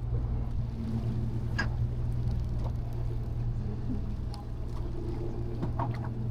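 Charter boat's engine running steadily at low speed with a low, even hum, and a few sharp clicks and knocks about a second and a half in and again near the end.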